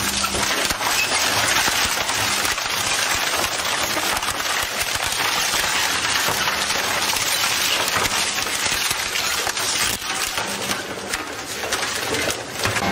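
Twin-shaft shredder's hooked cutter discs tearing through wooden boards: a dense, continuous crackling and splintering of wood.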